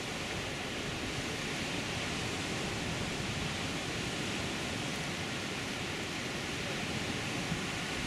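Sea surf breaking and washing among dark rocks and pebbles on a rocky shore: a steady, even noise of waves with no distinct single crashes.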